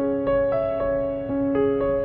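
Background music: a gentle keyboard melody, one note about every quarter second over a held low note.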